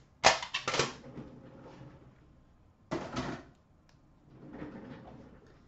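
Card-box packaging and a tin being handled and set down: a quick clatter of knocks just after the start, then a second, shorter knock about three seconds in, with faint rustling between.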